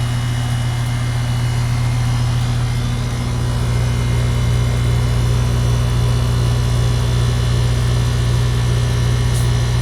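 A 2022 two-ton Goodman heat pump outdoor unit running in cool mode just after startup: a steady compressor hum with the condenser fan. The low hum shifts and grows slightly louder about three seconds in.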